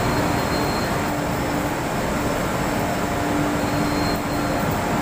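Cotton-waste recycling machinery running: blowers and a chute feeder moving cotton fibre through metal ducts make a dense, steady noise with a constant hum.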